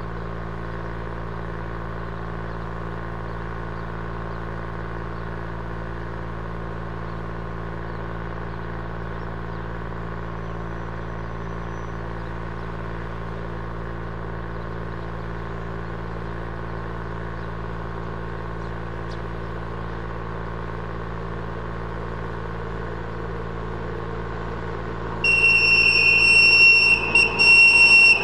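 Steady mechanical hum of an approaching train, then a loud train horn blast of about three seconds near the end, with a couple of brief breaks.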